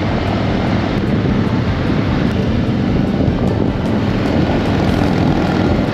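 Harley-Davidson motorcycle V-twin engine running with a steady, dense rumble.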